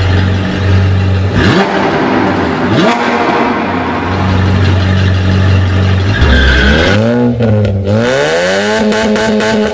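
Car engine running with a steady low hum, with two quick rising sweeps in the first few seconds, then revving up and down several times in the last three seconds.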